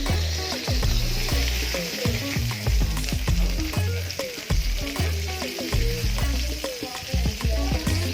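Pork chops sizzling in hot oil and butter in a frying pan, a steady hiss, with background music playing over it.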